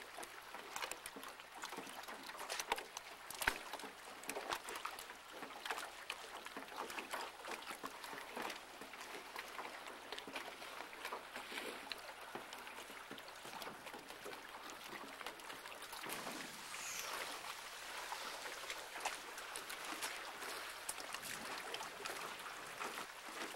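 Choppy lake water lapping and splashing, with many small irregular splashes over a steady hiss.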